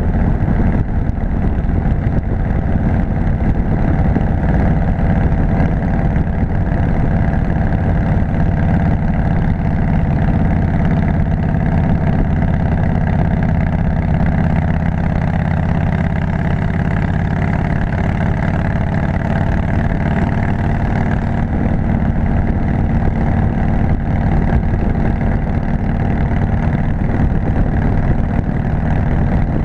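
Harley-Davidson V-twin engine running steadily as the motorcycle cruises, heard from a camera mounted on the bike.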